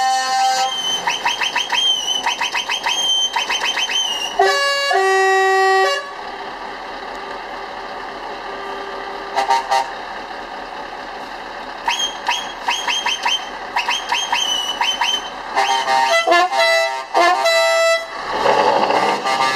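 Truck horns honking: a fast run of short high-pitched toots from about a second in and again from about twelve seconds in, and deeper multi-note air horn chords around five seconds in and again near the end. Between the bursts the truck's cab noise hums along quieter.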